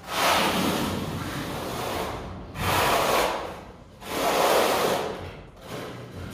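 Notched steel trowel scraping and combing cement tile adhesive across a concrete floor in three long strokes.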